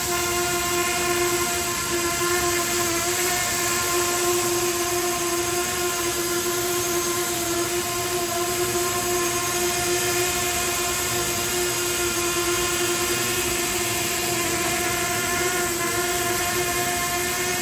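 SJRC F11 4K Pro quadcopter hovering close by: a loud, steady whine from its brushless motors and propellers, holding an even pitch with slight wavers.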